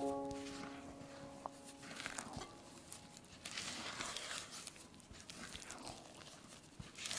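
Silicone spatula folding flour into wet mashed-banana batter in a glass bowl: soft, repeated stirring strokes, about one or two a second. A few held background music notes fade out in the first couple of seconds.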